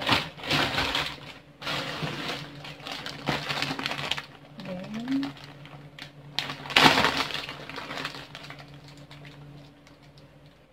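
Clear plastic bags crinkling and rustling as they are handled and pulled open, in a series of bursts, the loudest about seven seconds in. A steady low hum runs underneath.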